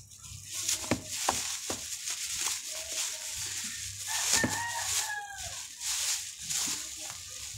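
Thin plastic bags crinkling and rustling as they are pulled open and handled, a steady run of crackles.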